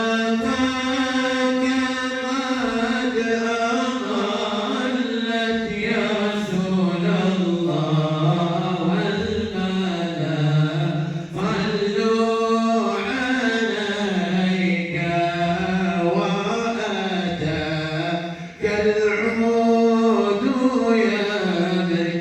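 Islamic devotional chanting (inshad of salawat on the Prophet): a voice holds long, slowly rising and falling notes, stretching each syllable over several seconds, with short breaths about eleven seconds in and near the end.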